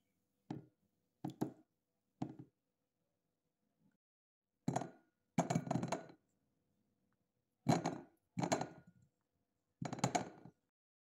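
Cherry tomatoes set down on a plate, making short clinks and knocks: about nine brief clatters at irregular intervals, some in quick pairs, with silence between them.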